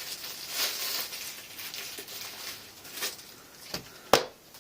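Knife box and packaging being handled, rustling and scraping with small ticks, then one sharp click about four seconds in.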